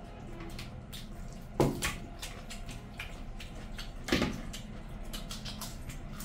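Eating by hand from steel platters: wet chewing and mouth sounds, fingers squishing and mixing rice and curry, and small clicks against the metal, with two louder sudden sounds about one and a half and four seconds in.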